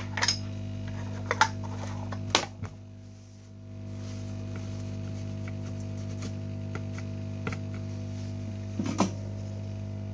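Steady low electrical hum, with a few sharp clicks and knocks from things being handled on the bench; the loudest knock comes a little over two seconds in and another comes near the end.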